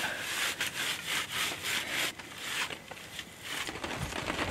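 Hands brushing and wiping across a bushcraft table of wooden sticks, clearing it off: repeated rubbing strokes over the slats, about four a second, growing quieter after about two seconds.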